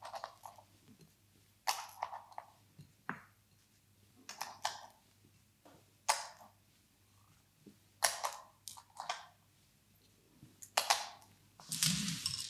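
Montessori fraction-circle pieces being lifted and fitted back into their frame: a series of light clicks and clacks, one every second or two, with a longer clatter near the end.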